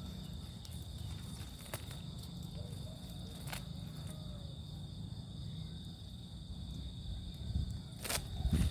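Steady, high-pitched chirring of insects, with a low rumble underneath and a few sharp clicks or knocks, two close together near the end.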